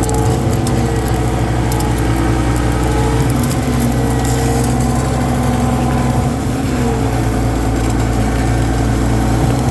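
Leaf blower engine running steadily without a break.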